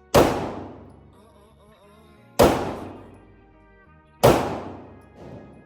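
Three gunshots about two seconds apart, each a sharp crack followed by a long fading echo, from target shooting at a shooting range.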